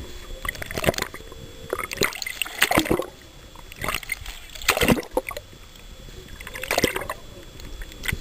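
Water splashing and gurgling around a snorkeler's camera near the surface, in surges about every two seconds.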